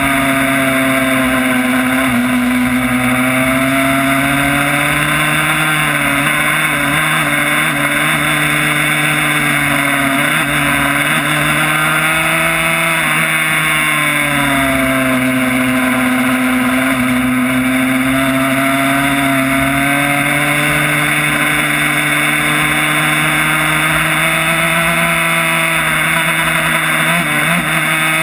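Yamaha YZ85 single-cylinder two-stroke engine in a 1994 Honda RS125 road racer, held at high revs at speed on track, its pitch sagging and climbing slowly a few times and rising again near the end. Heavy wind rush over the windscreen and fork-mounted camera runs underneath.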